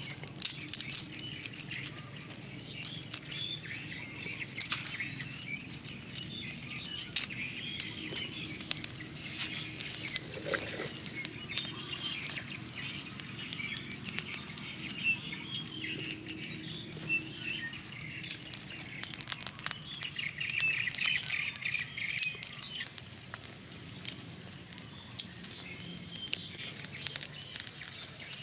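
Small fire of dry twigs and leaves crackling with scattered sharp snaps, and dry sticks rustling as they are laid on it. Birds chirp in the background.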